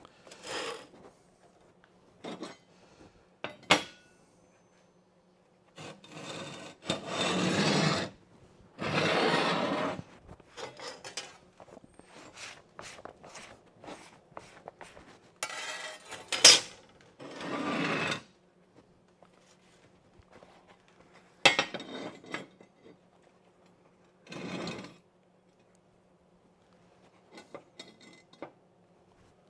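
Electric welder tack-welding a frame of steel angle: several crackling arc bursts of one to two seconds each, with a few sharp clicks between them and a faint steady low hum underneath.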